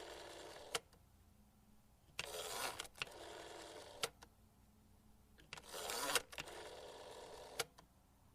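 Rotary telephone dial being turned and let spin back, again and again, each spring return ending in a sharp click at the finger stop. The cycle repeats about every three and a half seconds.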